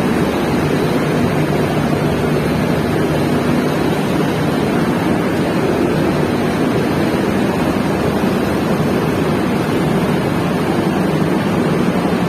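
Steady running noise of a moving passenger train, heard from on board: an even rumble and rush with no distinct clacks or breaks.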